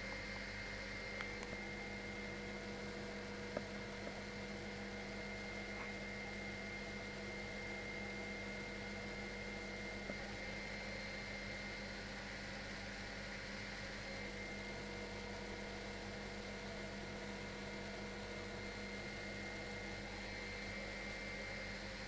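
Steady hum of an MD600N helicopter climbing out after lift-off, heard muffled through the cockpit intercom feed, with a few faint clicks.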